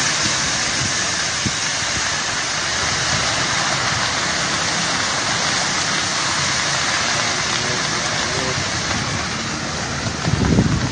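Wildfire burning through trees and brush, a steady rushing hiss of burning vegetation. Near the end a louder low rumbling comes in.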